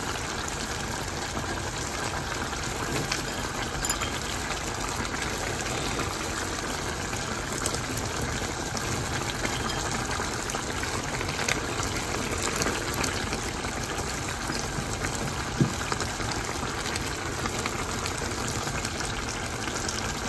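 Pulao rice and broth simmering in a nonstick pan on the stove: a steady bubbling hiss with a few faint clicks.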